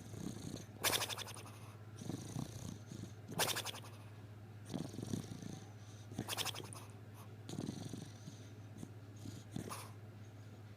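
Beagle snoring in its sleep: a rattling snore about every three seconds, four in all, with a softer breath between each.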